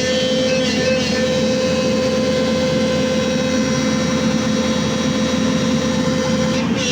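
Sany SY210 excavator's engine and hydraulic pump running steadily, with a constant mid-pitched whine over the engine noise.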